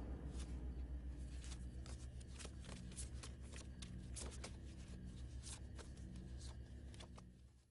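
A stack of paper photographs being flipped through by hand: a run of quick, light papery clicks over a low steady hum, fading out near the end.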